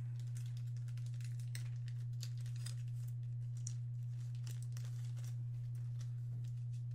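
Packaging being crinkled and torn by hand as a small boxed item is opened, faint scattered rustles and clicks over a steady low hum.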